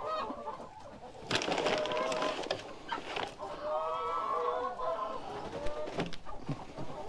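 Backyard hens clucking and giving drawn-out calls. A rustling scuffle starts about a second in, and there is a single knock near the end.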